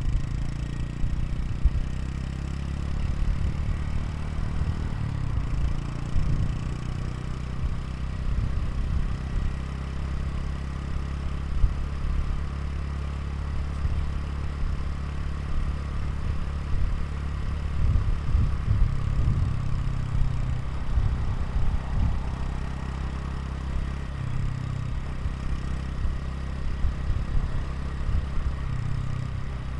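Exhaust note of a Honda Super Cub 110 Pro's air-cooled single-cylinder engine, running steadily at low revs with small swells in level.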